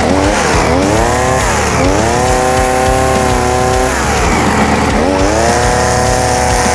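Bosco two-stroke brush cutter engine revving to high speed three times, dropping back briefly after about a second and again around four seconds in, as its guarded disc head cuts into grass and soil.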